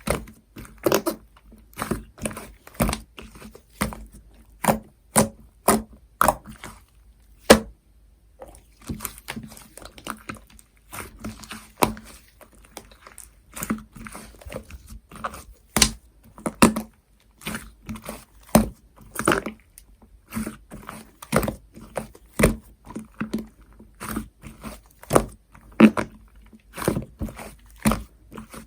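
Soft clay-mixed cream slime being pressed and folded by hand. It makes a string of sharp clicks and pops as trapped air bursts, about one or two a second, with short pauses.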